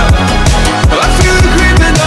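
Background electronic dance music with a heavy, regular bass beat.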